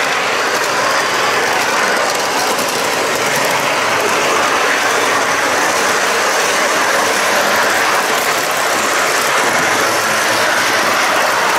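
Model train's metal wagons and wheels running steadily along metal three-rail track, heard close up from the last car.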